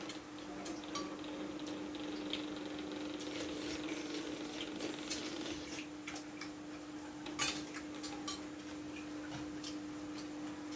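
Metal spoons clinking and scraping against a stainless steel bowl and a glass bowl during a meal, in scattered light clicks, the loudest about seven seconds in. A steady low hum runs underneath.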